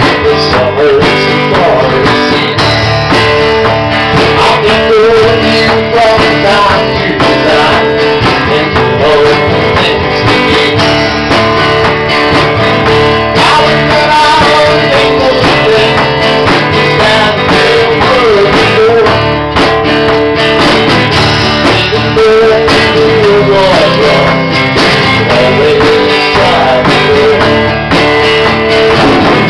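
A small band playing a song live: electric bass, strummed acoustic guitar and a drum kit.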